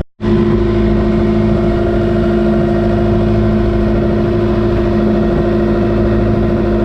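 Boat engine running at a steady speed, a constant even drone with no change in pitch, starting after a split-second gap.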